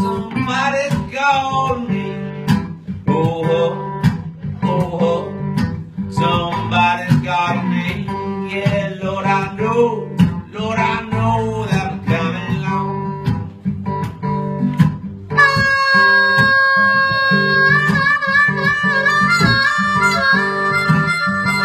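Country-blues instrumental break: acoustic guitar in open G tuning, with a wavering, bending melody line over it. About fifteen seconds in, a harmonica comes in loudly with held, stepping chords.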